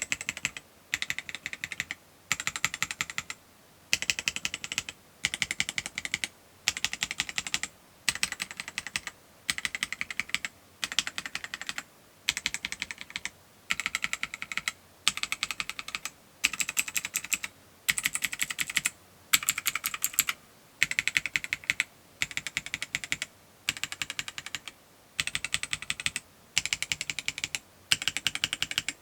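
Typing on a gasket-mount AJAZZ AKS068 mechanical keyboard: repeated bursts of about a second of quick keystroke clacks, each followed by a short pause.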